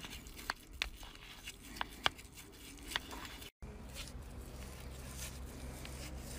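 Faint scratchy brushing as a stiff brush spreads hoof grease over a horse's hoof, with a few sharp clicks in the first half. The sound cuts out for a moment a little past halfway.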